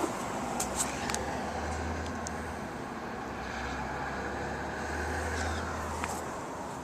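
A motor vehicle engine running steadily, a low hum that swells and fades twice, with a few light clicks.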